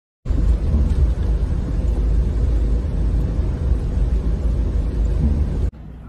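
Steady low rumble of a car driving on a snow-covered road, heard from inside the cabin. It cuts off abruptly near the end.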